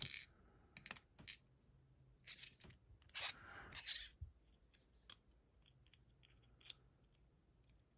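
Small metal clicks and scrapes as the pins of a gutted ISEO R6 lock cylinder are handled and pulled out. There is a sharp click at the start, a few light ticks, a longer scrape about three to four seconds in, and one more click near the end.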